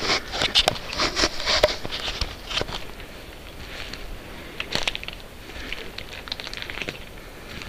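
Footsteps crunching through dry twigs and needle litter on a forest floor, with small snaps and crackles; thickest in the first three seconds, sparser after.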